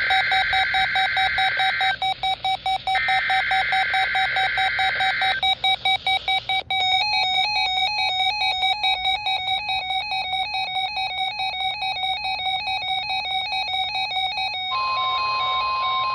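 NOAA Weather Radio weekly test signal: two chunks of screechy SAME digital header data, about two seconds each with a short gap. Over this several weather alert radios beep rapidly at different pitches as they respond to the test. Near the end a steady single tone begins.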